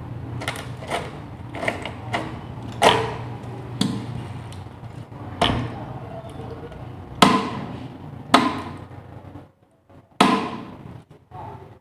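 Irregular knocks and clacks of hard objects being handled and set down, about ten of them, over a steady low hum that stops near the end.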